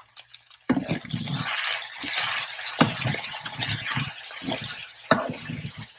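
Strips of beef sizzling in a hot frying pan, the hiss starting about a second in, while a wooden spatula stirs them with a few scrapes and taps against the pan.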